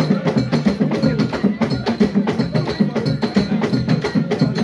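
Traditional Central African drumming played live: a fast, driving rhythm of many even strokes a second, with sharp wooden-sounding clicks over deep drum hits.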